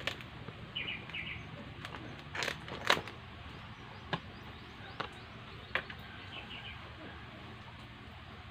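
Scissors snipping through a spiny lobster's tail shell: a few sharp crisp clicks, the loudest a pair about two and a half to three seconds in, then a few lighter ones. Faint short bird chirps are heard twice in the background.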